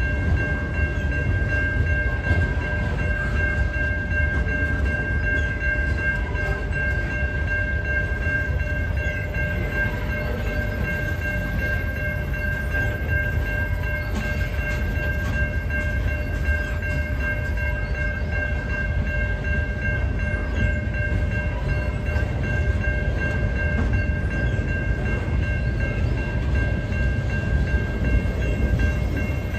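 Canadian National freight cars rolling past over the rails with a steady, heavy rumble, while the level crossing's warning bell rings on without a break.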